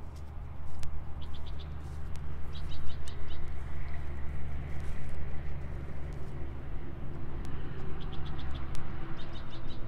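Wind buffeting the microphone as a steady low rumble, with frogs calling: several short trills of rapid high clicks, a few seconds apart.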